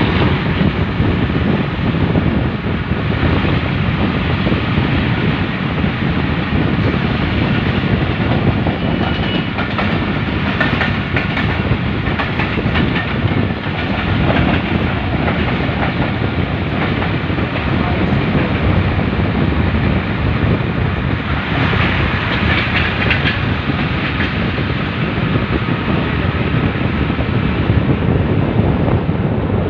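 Train running along the track: a loud, steady rumble that goes on without a break.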